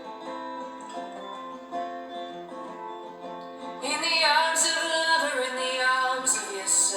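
Acoustic guitar playing a song, with a voice beginning to sing about four seconds in.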